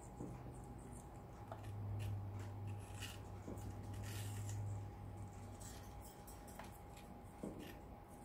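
Parrot beaks biting and crunching apple flesh off a plate, making small scattered clicks and crunches, with a steady low hum in the middle.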